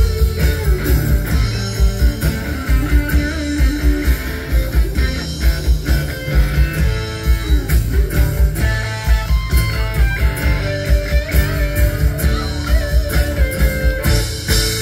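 Live rock band playing without singing: a drum kit keeping a steady beat, with electric bass, strummed acoustic guitar and electric guitar lead lines over it.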